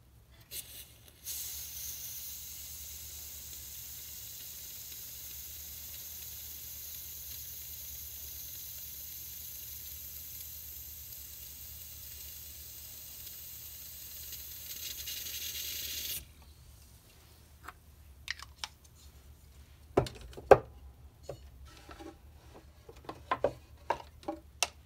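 Butane gas hissing steadily from an inverted Coleman butane can into a small live-steam locomotive's gas tank for about fifteen seconds, then cutting off suddenly as the can is lifted away. A scatter of sharp clicks and knocks follows as things are handled on the bench.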